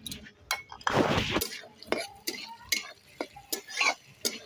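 Metal spatula scraping and knocking against an aluminium kadai, about two to three strokes a second, as chopped onion, garlic and ginger are stirred in hot oil. A short rush of noise comes about a second in.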